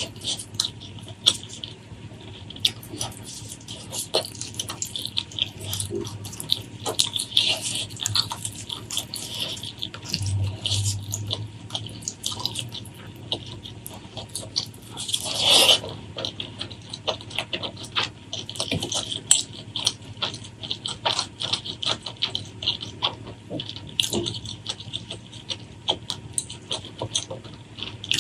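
Close-miked eating sounds: wet chewing and lip-smacking in a dense run of quick, irregular clicks. About fifteen seconds in comes one longer, louder wet burst.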